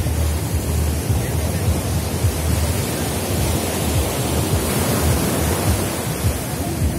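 Sea surf breaking and washing up over the sand in a steady rush, with a low rumble of wind on the microphone underneath.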